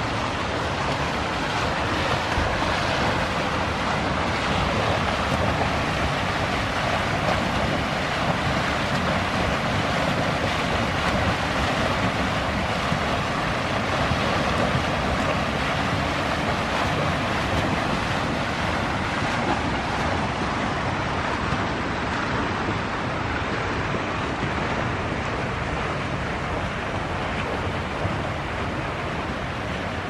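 Fountain water spilling over a series of low brick ledges into shallow pools: the steady rushing splash of small cascades.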